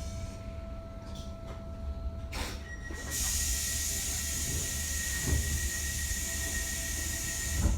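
DART electric commuter train with a low steady rumble. About three seconds in, a loud air hiss and a steady high whine start together and run on until a sharp thud near the end cuts them off.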